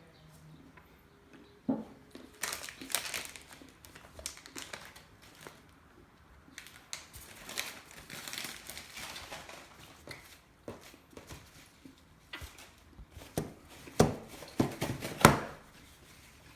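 Chocolate bar wrapper crinkling and rustling in irregular bursts, with a few sharp, louder crackles near the end.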